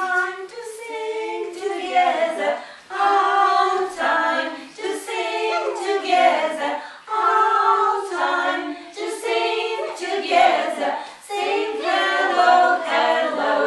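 A small group of women singing a children's hello song together without accompaniment, a simple tune sung in short phrases.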